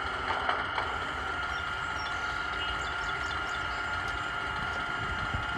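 1/16 Tamiya RC Sherman tank's sound unit playing an engine idle rumble through its small speaker, with a steady high-pitched whine as the turret traverses.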